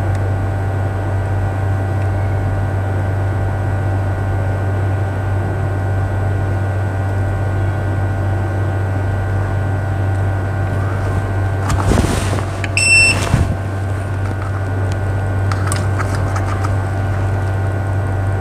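Steady low machine hum with several fixed whining tones above it. About twelve seconds in come a brief rustle and a few short high beeps.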